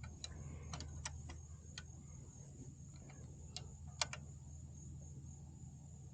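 Scattered light clicks and taps of hand tools on the motorcycle's kickstand switch mounting, irregular, with the sharpest click about four seconds in.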